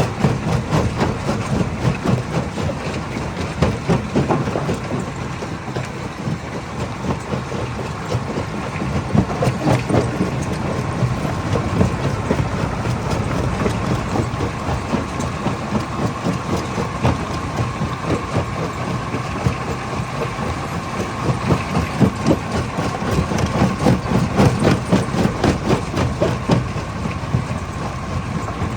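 Stone crusher running under load: a steady machine drone with a faint whine, and a dense, unbroken clatter of rapid knocks as rock is broken inside it.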